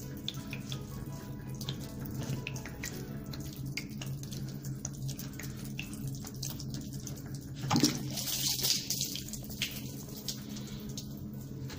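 Water splashing and trickling from a whole-house sediment filter housing as its clear bowl is unscrewed from the head, with small plastic clicks and a louder sudden gush of water about eight seconds in.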